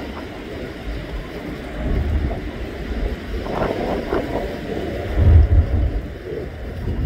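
Gusty wind buffeting the microphone in uneven low rumbles, heaviest a little after the middle, over the distant steady roar of a twin-jet airliner's engines as it rolls down the runway.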